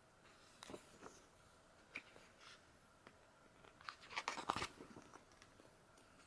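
Photobook pages being handled and turned: a few soft rustles, then a short crinkly burst about four seconds in.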